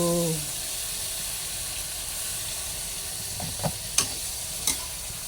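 Stir-fry sizzling steadily in hot oil in a pan, with a few sharp clicks of the stirring utensil against the pan in the second half.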